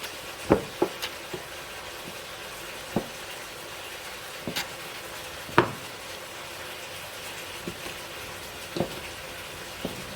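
Food sizzling in a frying pan with a steady hiss while a spoon stirs it, knocking against the pan several times; the sharpest knock comes about five and a half seconds in.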